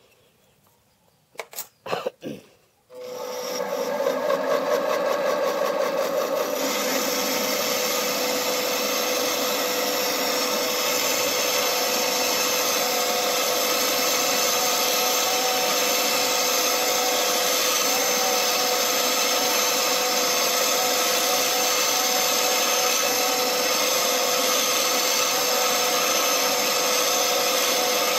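A couple of sharp clicks, then a small metal lathe starting up about three seconds in and running steadily, with a steady hum and a wavering whine over a machine whirr as the chuck spins the pulley blank.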